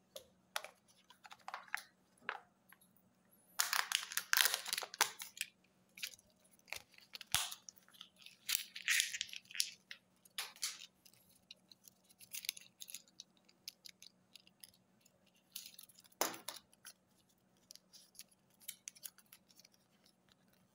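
Plastic and foil wrapping of a Kinder Joy toy capsule crinkling and tearing as it is unwrapped by hand, in short bursts with pauses. The loudest stretch is about four seconds in, with more bursts around nine and sixteen seconds.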